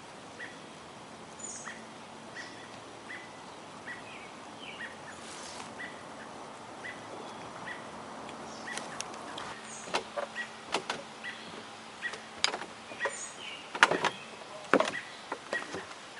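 A chipmunk giving a steady run of single chip calls, about one and a half a second, the alarm call of a chipmunk with a cat nearby, with faint higher bird chirps. From about halfway, sharp knocks and rustling break in, the loudest a couple of seconds before the end.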